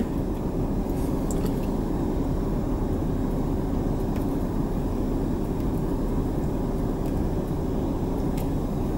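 Steady low hum of a truck running, heard from inside its cab, even in level throughout.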